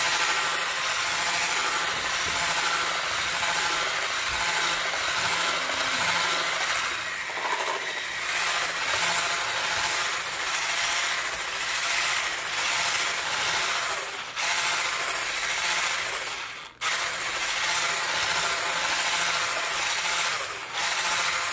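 Handheld electric whisk running steadily as it beats a thick corn cake batter, cutting out for a moment about three-quarters of the way through.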